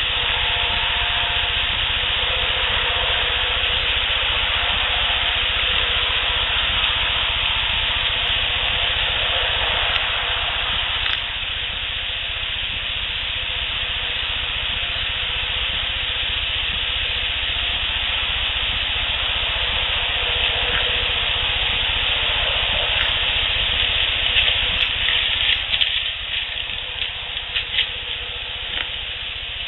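Steady, heavy hiss of a boosted outdoor field recording, with a low rumble underneath and a cluster of short scratchy clicks near the end.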